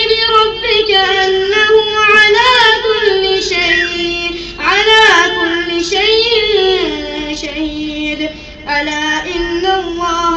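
A man's voice chanting Quran recitation in long, drawn-out melodic phrases, holding high notes that rise and fall, with short breath pauses about four and a half and eight and a half seconds in.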